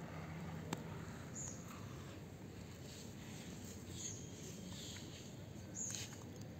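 Indian star tortoise biting and chewing soft fruit: faint wet munching with a sharp click about a second in. A few short, high chirps come through about a second and a half, four and six seconds in.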